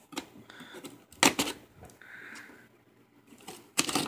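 Cardboard shipping box being handled and opened by hand: a few sharp knocks and scrapes of cardboard, about a second in and again near the end, with a short stretch of scraping in the middle.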